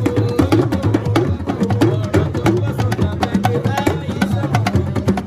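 Drum music: drums and other percussion played in a fast, busy rhythm of many strokes a second.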